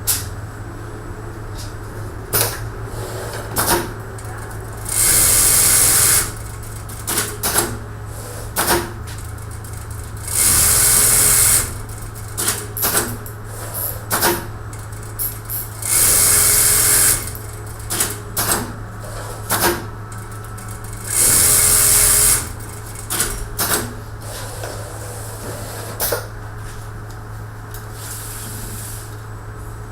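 Automatic pattern sewing machine for lip pockets running through its cycle: a steady motor hum with scattered clicks and clacks, and four loud hissing bursts of about a second each, coming roughly every five seconds.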